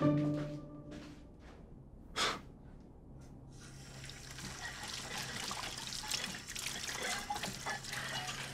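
Tap water running into a kitchen sink with small clinks of dishes being washed, starting about four seconds in. Before that, a held tone fades out within the first second, and one short sharp sound comes about two seconds in.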